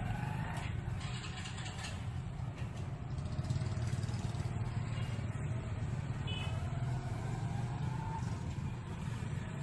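Steady low background hum, with a couple of faint brief tones over it.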